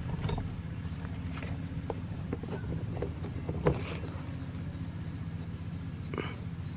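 Night insects chirping in an even pulsing rhythm, about four chirps a second, with a short pause a little past halfway, over a low steady hum and a few faint knocks.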